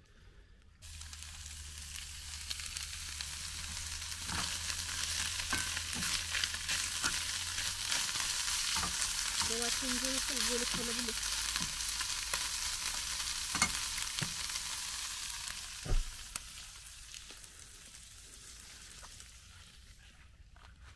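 Sliced meat frying in a pan on a gas stove, a steady sizzle with fork scrapes and taps as it is stirred. The sizzle starts suddenly, builds through the middle and fades toward the end, with one loud knock about three-quarters of the way through.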